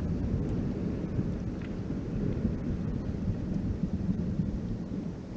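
Steady low rumble of ice falling and crumbling from a glacier's front, 'raining ice'.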